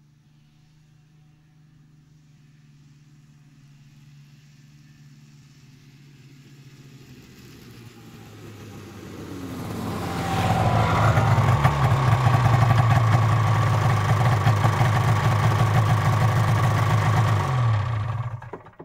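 Polaris 440 snowmobile's two-stroke engine approaching from a distance, growing from faint to loud over about ten seconds. Its engine note drops as it slows and pulls up alongside near the end, then the sound cuts off abruptly.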